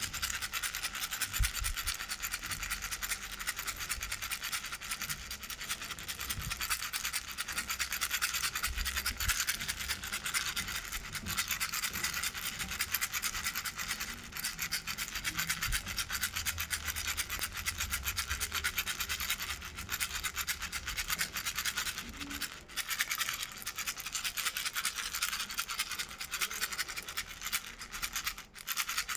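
Baby rattle shaken rapidly and steadily, a dense continuous rattle of small beads, briefly dipping twice near the end.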